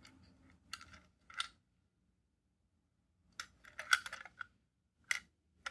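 Plastic Plarail toy train car being handled and turned over in the fingers, giving sharp clicks and small rattles: two clicks in the first second and a half, a quick cluster around four seconds in, then two more near the end.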